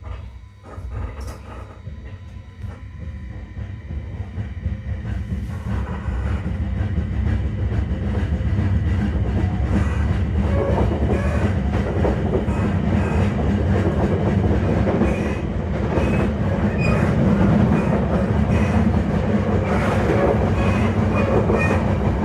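E721 series electric train car running with an abnormal noise: a rumble that grows louder over the first eight seconds or so, then holds steady with a dense run of quick knocks. The uploader puts the noise down to the wheels probably being in poor condition.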